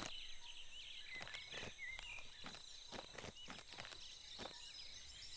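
Faint cartoon rainforest ambience: short bird chirps over a thin steady high tone, with a few soft, scattered taps.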